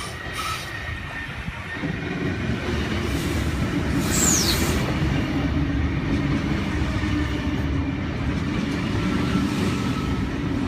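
Electric passenger train moving alongside the platform: a steady rumble and motor hum that swells about two seconds in, with a brief high, falling squeal about four seconds in.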